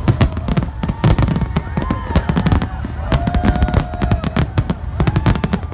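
Fireworks exploding over a harbour: a dense run of sharp bangs and crackles, several a second, over a steady low rumble.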